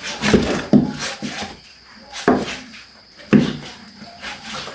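A wooden cooking stick working stiff ugali in a metal pot: four irregular dull thumps, with scraping between them.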